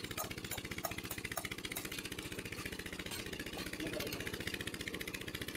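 An engine at the borewell drilling site running steadily at a fast, even beat, with a few light ticks in the first two seconds.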